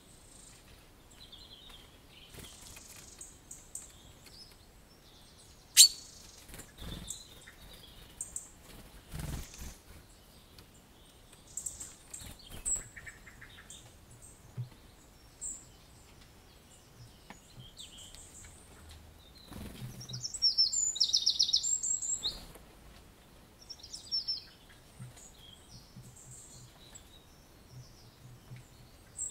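Wild birds calling and chirping in short scattered phrases, with a rapid trill of quick high notes about twenty seconds in. A single sharp click about six seconds in is the loudest sound.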